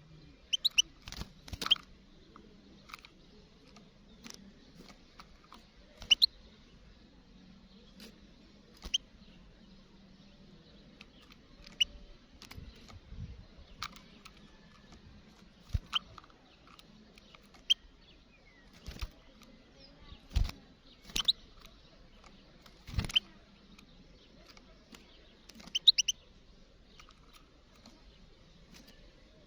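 European goldfinch giving scattered short, high chirps, one or two at a time every second or two, with a few sharp clicks and knocks in between.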